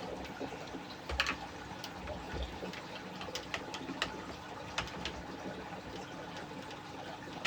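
Scattered light clicks and taps of plastic and metal parts being handled on a G36 airsoft rifle as its spring guide and spring are taken out for a swap.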